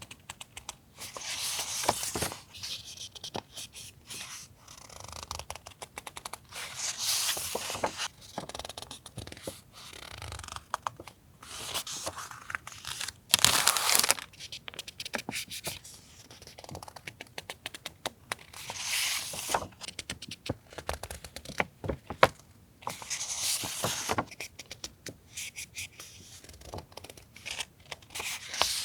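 Paper stationery and its packaging being handled up close: rustling and crinkling in uneven swishes a second or two long, with small taps and clicks between them. The loudest swish comes about halfway through.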